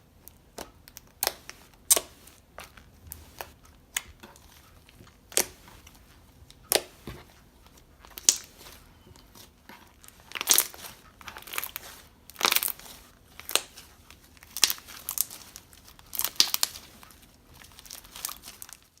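Hands squishing and stretching slime mixed with crunchy cereal rings: irregular crackles, pops and crunches, coming thicker and louder in the second half.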